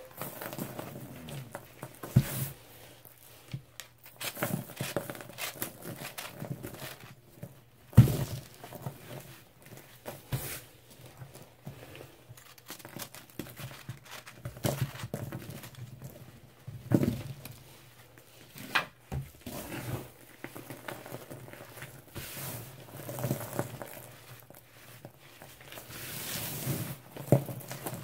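Hands squeezing and crumbling a crisp dried slab of Lemon Comet, baking soda, chalk and oxy cleaner into powder. It makes soft, irregular crunching and sifting, with several sharper crunches; the loudest comes about eight seconds in.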